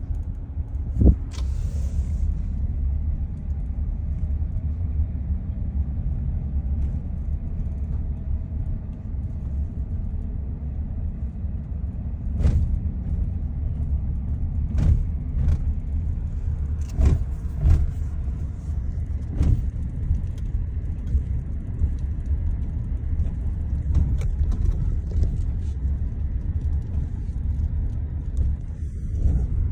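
Steady low rumble of a car driving, heard from inside, with a handful of sharp knocks and rattles spread through it.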